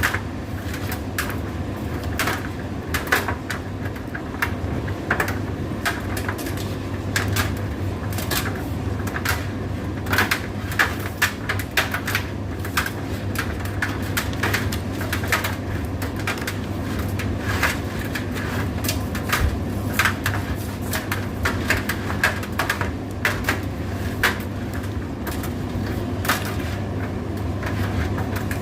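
Indesit IDC8T3 condenser tumble dryer running: a steady low motor-and-drum hum with frequent irregular clicks and taps.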